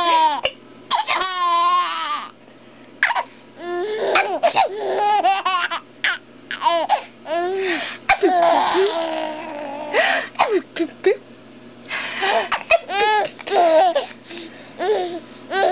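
Baby laughing in repeated high-pitched bursts of giggles, set off by sneezing.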